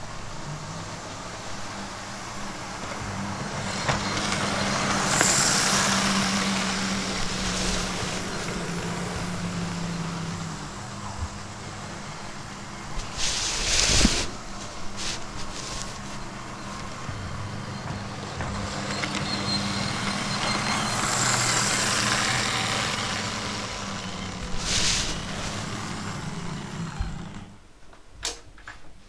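00 gauge model diesel locomotives running on the track: a steady whirr of their motors and wheels that swells twice as they pass close by and dies away near the end as they slow. A brief clatter comes about halfway through.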